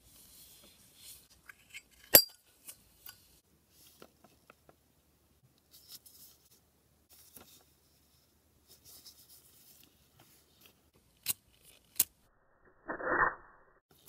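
Metal clicks and light scraping from handling a Zippo-style windproof lighter as its chimney insert is slid out of the case. One sharp click about two seconds in and two more near the end, then a brief rushing scrape.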